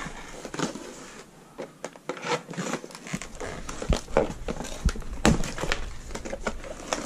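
Cardboard box insert handled and shifted while a knife cuts the ties holding the RC truck's wheels: irregular rustling and crinkling with sharp snaps and knocks, loudest from about four to five and a half seconds in.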